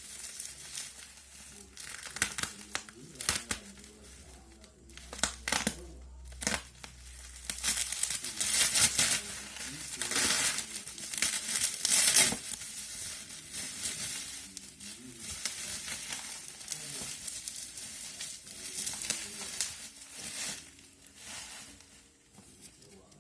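Packaging of a Redmi 6A phone box being handled, with plastic wrap and cardboard crinkling and rustling and scattered clicks and knocks. It is loudest for a few seconds in the middle.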